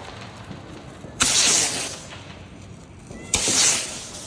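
Firework tube shooting shells into the air twice, about two seconds apart: each shot a sharp pop followed by a hissing rush lasting over half a second.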